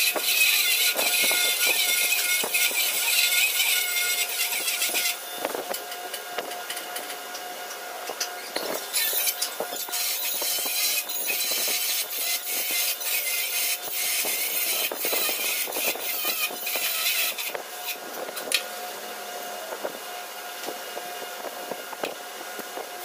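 Metal repair work on a tractor rotary tiller's harrow flap: stretches of hissing crackle that stop and start abruptly, about five seconds in and again around nine and seventeen seconds, over scattered clicks and knocks.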